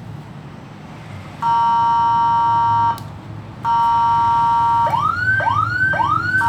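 Electronic police-escort siren module cycling through its tones: a steady buzzy tone, a brief cut-off at about three seconds, the steady tone again, then three quick rising whoops, then back to the steady tone. A low hum sits under it for about the first second and a half.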